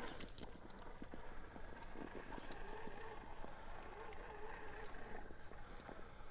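Redcat Everest 10 RC rock crawler climbing a fallen tree trunk: a faint, wavering whine from its electric motor and drivetrain, with scattered clicks and knocks as the tyres and chassis grip and bump on the wood.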